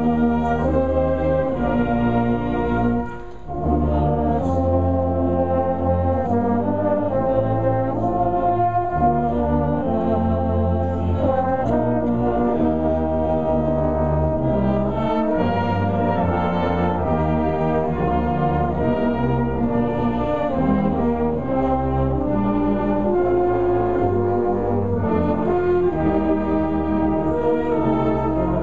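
Brass band with sousaphones playing a tune in long held chords over a strong bass line, with a short break about three seconds in.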